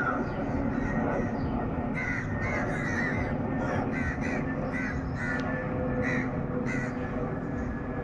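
Crows cawing in a run of short calls from about two seconds in, over the steady low rumble of a jet airliner passing overhead.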